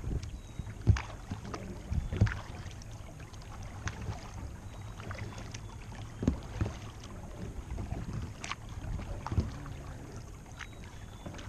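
Kayak being paddled on calm water: irregular paddle splashes and knocks against the plastic hull, every second or two, over a low steady rumble.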